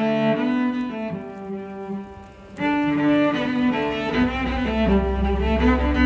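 Background instrumental music: a melody of held notes that dips away briefly about two seconds in, then comes back with a low sustained bass note underneath.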